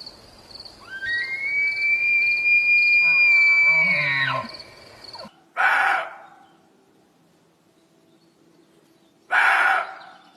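Deer calling: one long, high, whistle-like call that rises at the start and holds for about three seconds, then breaks into a low grunt. It is followed by two short, breathy blasts a few seconds apart.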